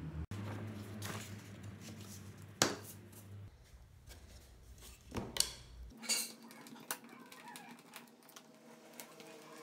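Wooden sanding paddle and a small screwdriver knocking and clicking against a tabletop as they are handled: one sharp knock about two and a half seconds in, a cluster of clicks and knocks around five to six seconds in, then faint small clicks.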